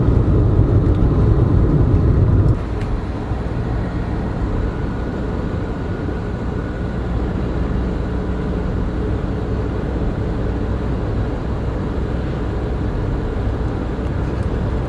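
Converted diesel minibus driving along an open road, heard from inside the cab as a steady low engine and road drone. The drone drops in level about two and a half seconds in.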